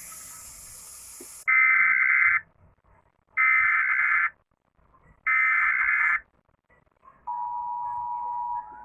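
Emergency Alert System tones: after a short stretch of hiss, three loud screeching SAME header data bursts, each just under a second long with about a second between them, then the steady two-tone EAS attention signal begins near the end.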